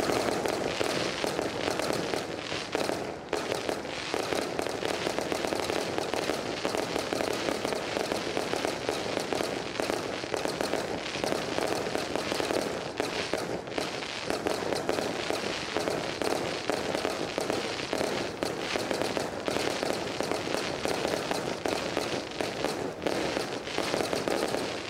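Fireworks display: shells bursting in a dense, unbroken barrage of rapid pops and bangs.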